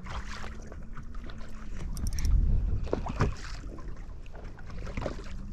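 Small waves lapping and slapping against a fishing boat's hull, with wind rumbling on the microphone and a few short knocks. A faint steady hum runs for the first second and a half.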